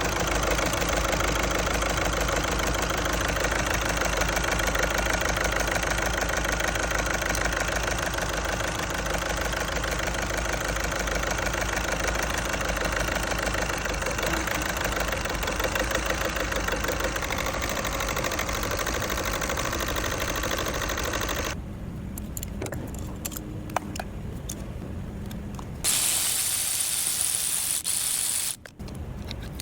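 Diesel engine idling, being checked for an injector misfire. About twenty seconds in, the engine sound drops away sharply; a loud hiss follows for a couple of seconds near the end.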